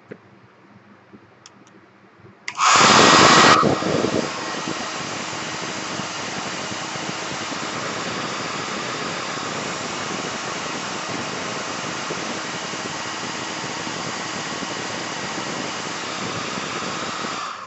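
Craft heat gun (embossing heat tool) switched on about two and a half seconds in, loudest for the first second, then blowing with a steady fan hiss, drying freshly applied glue on a paper bookmark; it switches off near the end.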